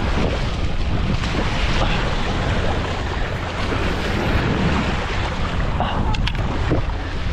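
Wind buffeting the microphone, with small waves washing and splashing over a rock ledge.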